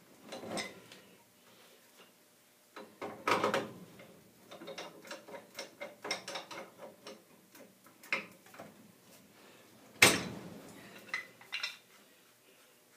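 Irregular metal clinks, scrapes and clicks of a wrench working a furnace gas valve loose from its gas pipe, with one sharp metal knock about ten seconds in.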